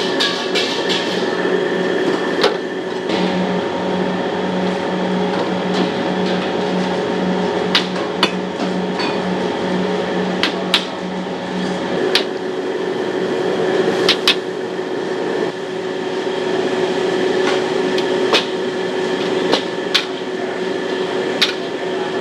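Metal spatula knocking against a wok every second or two, with sharp separate clanks over a steady noisy background with a constant hum, as from a wok burner and kitchen fan.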